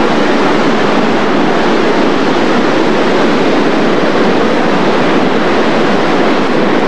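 Steady, loud rushing roar of Niagara Falls' water.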